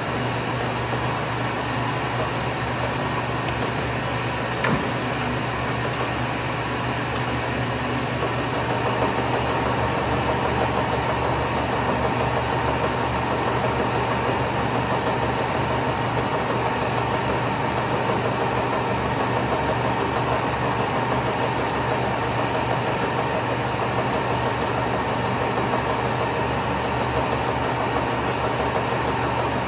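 Turret lathe running steadily while its turret tools turn a metal blank. The steady whine of the cut grows stronger and a little louder about nine seconds in, and there is a single click near five seconds.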